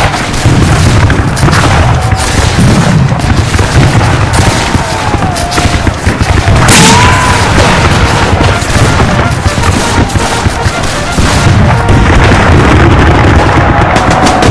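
Recreated Civil War battle din: cannon booms and rolling musket volleys layered densely together with no let-up, and a few short rising-and-falling whistles over them.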